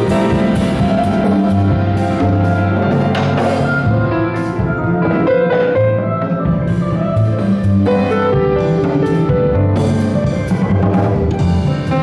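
A jazz-choro quartet of ten-string bandolim, grand piano, double bass and drum kit playing a bolero together. Sustained double bass notes lie under piano chords and melody, with cymbals and drums keeping time.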